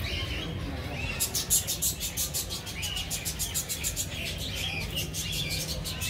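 A flock of budgerigars chattering, with runs of rapid high chirps about a second in and again near the end.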